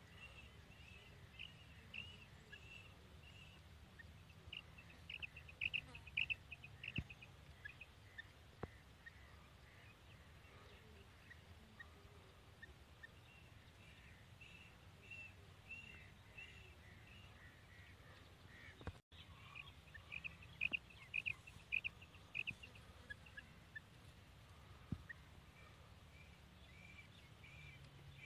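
Female quail calling: two runs of quick, short, high notes, one a few seconds in and one past the middle, with scattered single notes between, over a faint low background hum.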